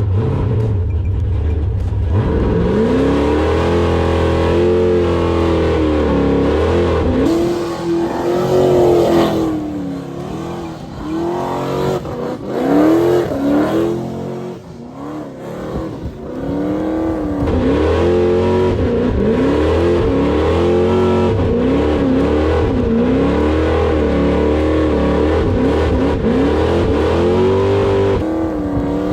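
A 540-cubic-inch V8 car engine being revved hard over and over, its pitch rising and falling again and again as the car is driven through burnouts and donuts. It eases off for a couple of seconds around the middle, then picks up again.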